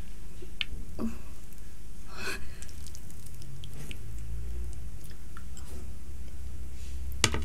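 Hands working rice and dal on dinner plates, with scattered light clicks of dishes and a brief rustle about two seconds in, over a steady low hum.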